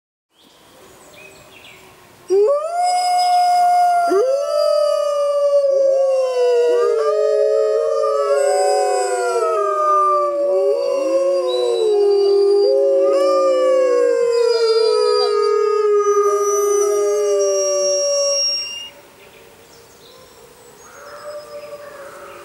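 Arctic wolves howling in chorus: several overlapping howls, each rising quickly and then held while sliding slowly down. The chorus begins about two seconds in and stops together a few seconds before the end.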